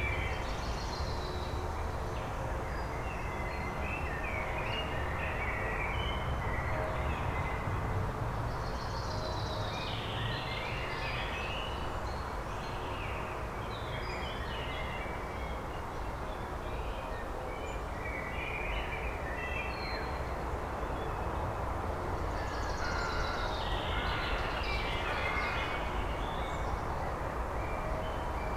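Male Eurasian blackbird singing: about six short warbled phrases a few seconds apart, over a steady low background rumble.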